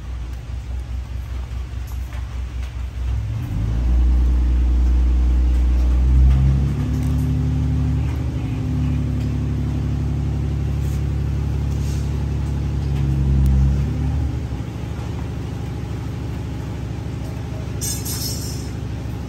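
A motor vehicle engine running off-camera: a low pulsing idle that rises to a loud, steady run for about ten seconds, stepping up and down in pitch, then drops back to a low hum. A brief hiss comes near the end.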